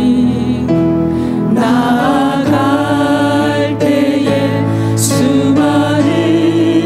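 A worship team of four singers, one man and three women, singing a Korean praise song into microphones in long held notes.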